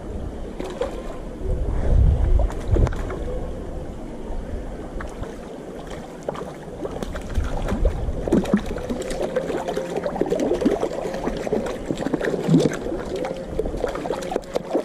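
Shallow stream water splashing and rippling close to the microphone, with many small clicks and knocks and a burst of low wind-like rumble about two seconds in.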